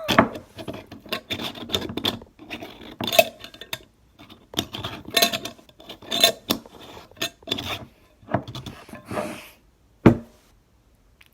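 Plastic slime container being fumbled with as its lid is forced on: a long run of irregular clattering, scraping and clicking, ending in one sharp knock about ten seconds in.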